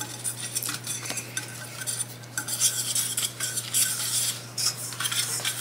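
Wire whisk scraping and clinking against the sides and bottom of a stainless steel saucepan in quick, irregular strokes while creaming butter with brown sugar.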